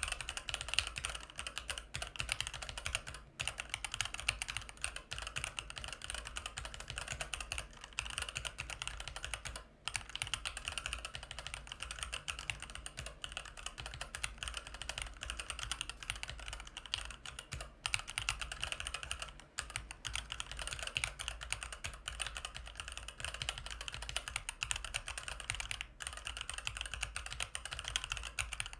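Continuous fast typing on a Varmilo MA87M mechanical keyboard with electro-capacitive EC Daisy V2 switches, a dense run of keystroke clicks broken by a few short pauses.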